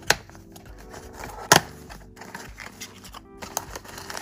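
Small cardboard blind box being opened by hand: two sharp clicks, the louder one about a second and a half in, as the tucked flap is worked free. Near the end comes rustling as the foil-wrapped bag inside is grabbed.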